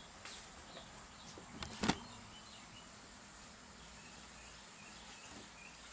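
Faint steady outdoor background noise, broken about two seconds in by a single sharp knock, with a few faint bird chirps later.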